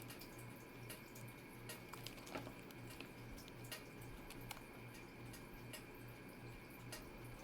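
Faint, scattered little clicks and soft wet ticks from a saucy meatball marinara sub being handled, over a low hum.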